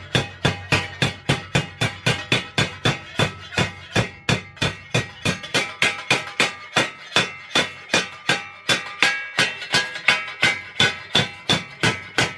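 Hammer tapping a sheet-steel panel lip against a steel stake, a steady run of light blows at about four a second, each ringing briefly. The blows flatten the shrunk lip, which is braced with locking pliers so that it does not spread back out.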